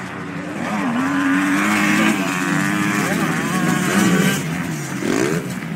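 Motocross bikes racing past, their engines revving hard with the pitch holding, dropping and climbing as the riders work the throttle and shift gears, with a quick rising rev near the end.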